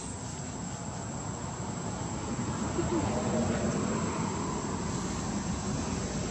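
Steady high-pitched insect drone over a low background rumble, with faint indistinct voices.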